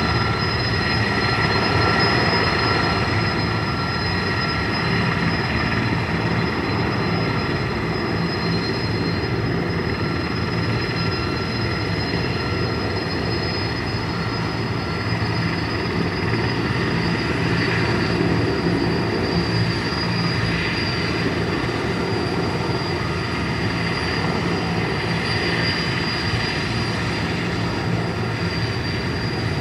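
Large helicopter's turbine engines and rotor running steadily, with a constant high turbine whine over a low, even rumble.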